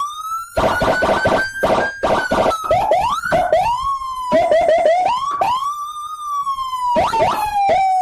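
Electronic vehicle siren setup, a Whelen Epsilon and a Senken CJB100BD siren through two YD100 speakers, sounding two tones together. A slow wail rises and falls while bursts of short, quick upward chirps cut in and out over it.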